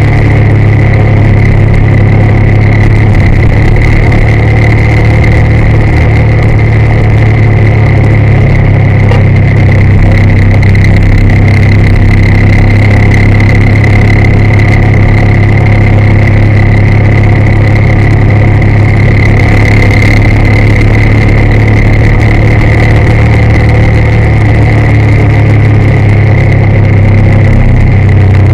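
Motorcycle engine running steadily at cruising speed, recorded from the rider's own bike, loud and unchanging, with a steady high whine above it.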